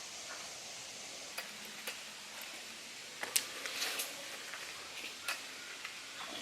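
Footsteps and rustling while hiking: scattered clicks and short crunches, busiest a little past the middle, over a steady background hiss.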